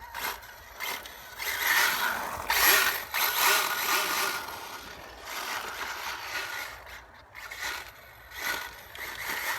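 HPI WR8 Flux radio-controlled rally car driving on a wet road: its brushless electric motor whines and its tyres hiss on the wet surface in surges as it speeds up and slows. It is loudest from about a second and a half in to about four and a half seconds, with another surge near the end.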